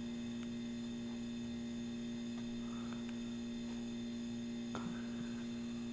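Steady electrical hum with a few faint clicks.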